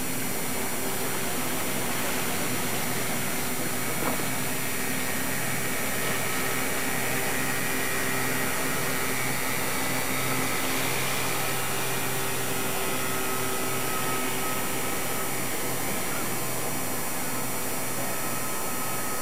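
Steady boat engine drone with a low hum and a faint higher whine over an even hiss.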